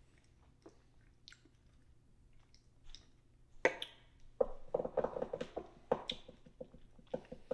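Mouth and lip sounds of someone tasting whiskey: faint at first, then a run of short wet smacks and clicks in the second half. A small plastic shot cup is set down on the bar with a sharp click a little past the middle.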